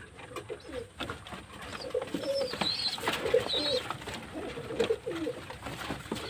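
Domestic pigeons cooing again and again, with wing flaps and scuffling as they crowd together for food, and a few high chirps.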